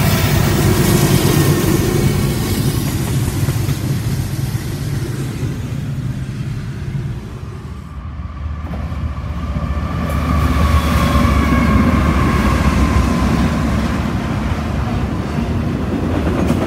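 A Norfolk Southern diesel freight locomotive passes close by, its engine running with a steady low drone. After a short break a freight train comes up and rolls past, its trailer-on-flatcar cars rumbling on the rails, with a high, slowly falling whine from about ten seconds in.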